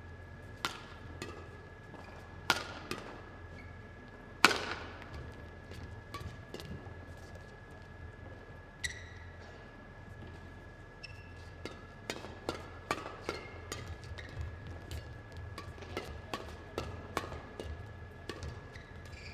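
Badminton rackets hitting a shuttlecock back and forth in a pre-match knock-up. The hits are sharp and echo in the hall: one loud hit about four seconds in, and quicker exchanges over the last several seconds.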